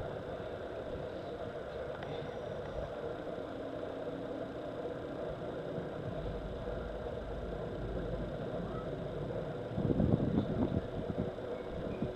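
A steady engine-like hum, with louder bursts of low rumbling about ten seconds in.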